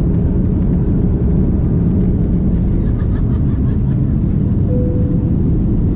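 Passenger jet cabin noise heard from a seat: a steady low rumble of engines and airflow. A brief steady tone sounds about five seconds in.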